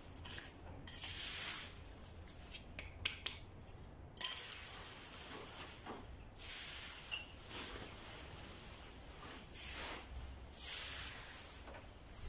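Dry fallen leaves and a plastic garbage bag rustling and crackling as leaves are gathered up by hand and bagged. The sound comes in short bursts every second or two, with a few sharp clicks about three seconds in.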